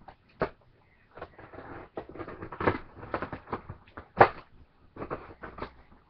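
Objects being handled and moved about: irregular knocks, clicks and rustling, with a sharp knock about half a second in and the loudest one about four seconds in.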